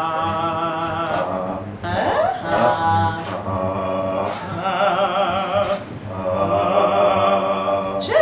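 Operatic singing: a woman's voice holds long notes with a wide vibrato, in several phrases of a second or two with short breaks between them.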